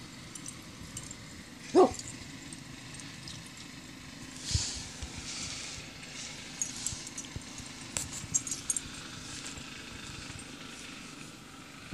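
A puppy barks once, short and sharp, about two seconds in. Faint scattered clicks and rustling follow a few seconds later.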